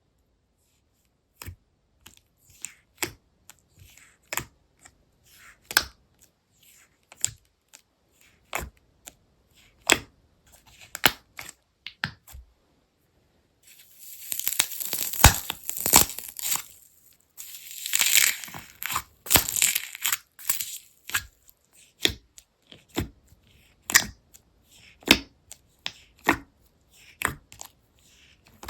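Slime being pressed and stretched by hand, giving sharp separate pops about once a second and, twice in the middle, a few seconds of dense crackling.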